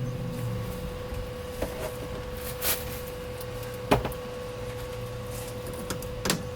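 Welder tack-welding the quick-release hub adapter to the steering shaft: a steady hum under a few short, sharp bursts spaced a second or more apart.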